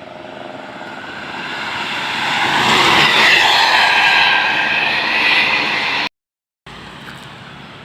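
A large bus passing close by at speed: its engine and tyre noise builds to a peak about three seconds in, with a whine that bends in pitch as it goes by, then cuts off suddenly. Quieter steady traffic noise follows.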